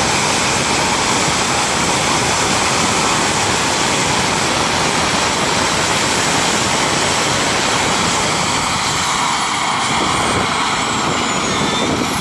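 Model jet's turbine engine, rated at about 26 kg of thrust, running hard in a ground run: a loud, steady jet roar with a high whine, the whine falling in pitch near the end.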